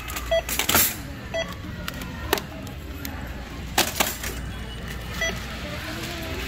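Supermarket checkout sounds: a few short electronic scanner beeps, with sharp knocks and plastic-wrap rustles as shrink-wrapped bottle packs are handled and set into a metal shopping cart.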